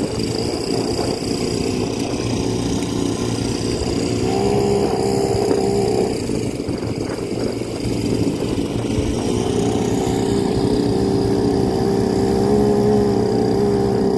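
Small two-stroke petrol engine of a Firman FFP15 floating water pump running under load, its note rising and getting louder about four seconds in, dropping back around six seconds, then rising again from about eight seconds on.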